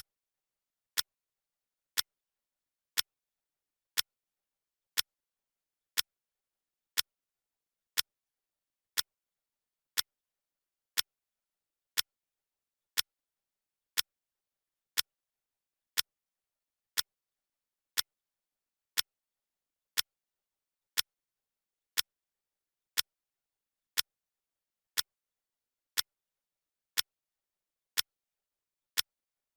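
Clock ticking sound effect: one sharp tick each second, evenly spaced, with silence in between, marking a countdown timer's seconds.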